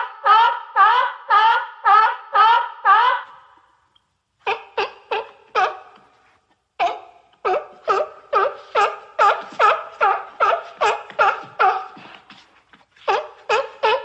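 A seal calling in runs of short, rising barks, about two or three a second, broken by brief pauses.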